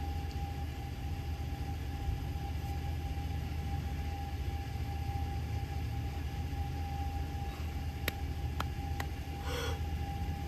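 Steady low engine hum with a steady whine over it, and a few sharp clicks near the end.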